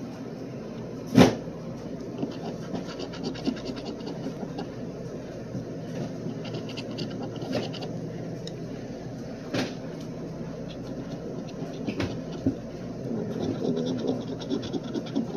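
Scratch-off lottery ticket being scratched in spells of quick rasping strokes, over a steady background hum. A sharp knock about a second in, and lighter knocks later.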